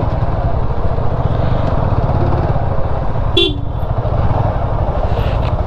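Motorcycle engine running at low speed with a steady low pulse. A short horn toot sounds about three and a half seconds in.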